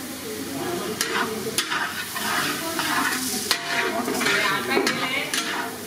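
Mutton keema sizzling as it is stir-fried in a large steel kadai. A flat metal spatula scrapes and knocks against the pan several times at irregular intervals.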